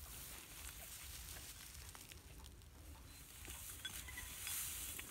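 Faint rustling and scraping, with scattered small clicks, of hands digging dry soil and straw away from a stuck walking tractor's wheel.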